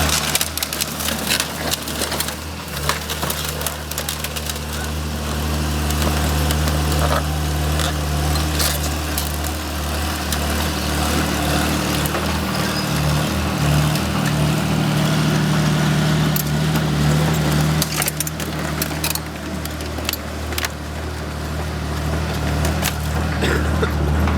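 O&K RH6 hydraulic excavator's diesel engine running steadily at a constant pitch, with scattered sharp cracks and knocks throughout.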